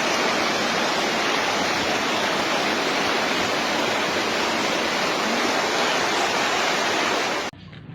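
Steady loud rush of flowing water, like a fast river or weir, that cuts off abruptly near the end.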